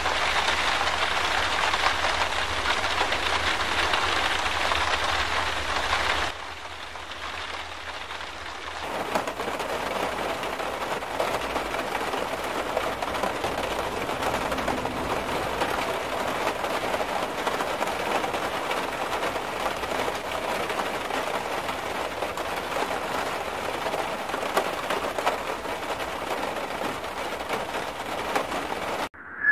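Heavy rain and floodwater, a steady rushing hiss with no voices. It drops away for a couple of seconds about six seconds in, then the rushing noise of rain and churning water comes back and holds steady.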